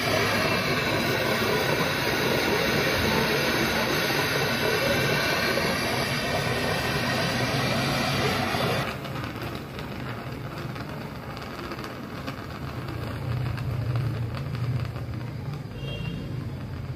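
Loud steady hiss of gas rushing out of the opened gas service pipe with the meter removed, as the line is cleared of water that had got into it. It cuts off suddenly about nine seconds in, leaving a quieter low rumble.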